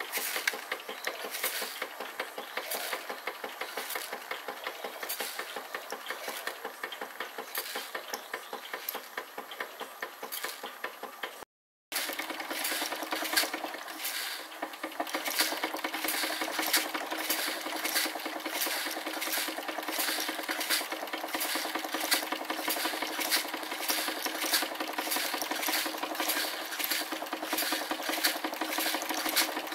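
Bing sheet-metal bucket elevator, belt-driven by a Wilesco D16 toy steam engine, its chain and buckets rattling and clattering with a regular ticking as they lift caraway seeds. After a brief break about twelve seconds in, the ticking comes faster: the machine is running too fast on too much boiler pressure and throws the seeds about.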